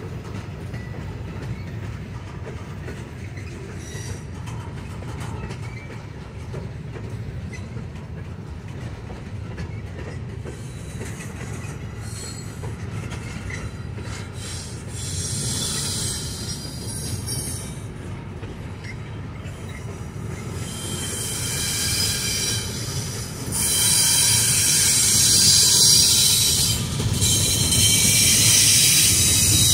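CSX intermodal freight train's well cars rolling past: a steady rumble of steel wheels on rail with some clickety-clack. High-pitched wheel squeal comes and goes, then grows loud in the last third as the loaded double-stack cars go by.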